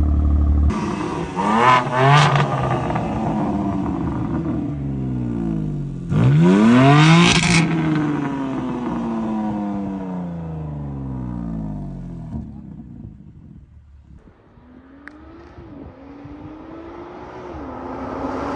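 BMW turbocharged inline-six breathing through an aftermarket CarBahn exhaust, revved while parked: a short blip about two seconds in, then a bigger rev about seven seconds in that peaks and falls back slowly. After a lull, a car accelerates toward the listener near the end, its exhaust note rising and getting louder.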